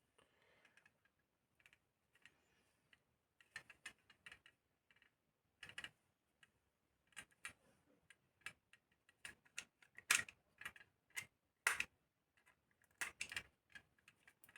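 Knife scraping and nicking the insulation off the thin lead wire of a mini water pump: faint, irregular clicks and short scrapes, with a few louder clicks in the second half.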